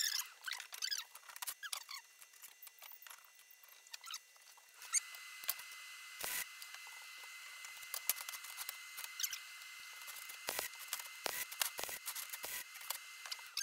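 GYS Smartmig 162 MIG welder arc on steel rod, a steady high hiss with a thin whine and sharp crackles that starts about five seconds in. Before it, scattered clicks and short high squeaks.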